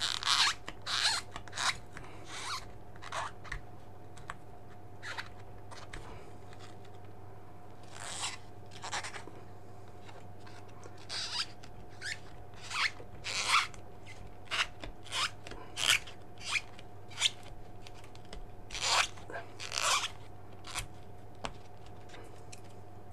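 A thumb rubbing double-sided tape off a black plastic screen frame: short scratchy rubbing strokes in irregular clusters, with a lull between about four and eight seconds in.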